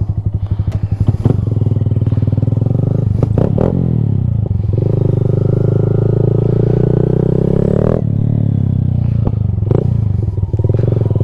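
Honda Grom's 125cc single-cylinder four-stroke engine idles with a pulsing beat, then pulls away. Its pitch climbs steadily, drops sharply about eight seconds in, and settles into a lower, steady run.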